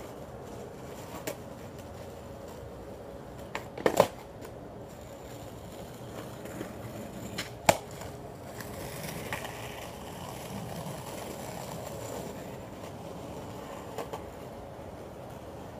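Skateboard wheels rolling on concrete, with sharp clacks of the board, the loudest pair about four seconds in, another pair near eight seconds and a lighter one near the end. The rolling grows louder in the middle.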